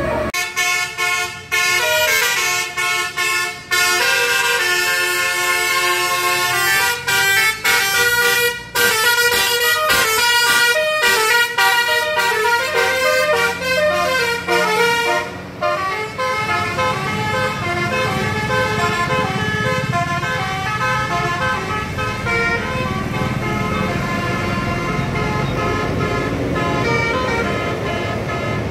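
A bus 'telolet' multi-tone air horn playing a quick tune of stepped, chord-like notes, with short breaks in the first half. From about halfway the notes run on without breaks over a low rumble.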